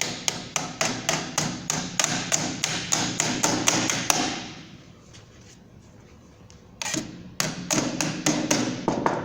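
Hammer tapping on sheet metal, folding a sheet-metal bottom's edge over a rim to crimp it, in a quick even run of about four blows a second. The blows stop for about two and a half seconds midway, then start again.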